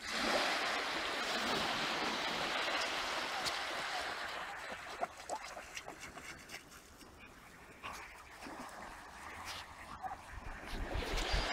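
Small waves washing onto a sandy beach: a steady hiss for the first few seconds, then quieter, with scattered small clicks and splashes.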